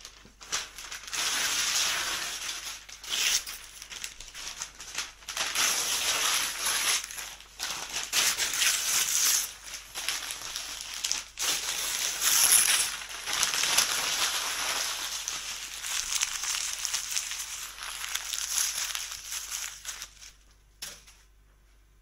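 Crinkling, crumpling noise in irregular surges, like something being crumpled close to the microphone, stopping shortly before the end.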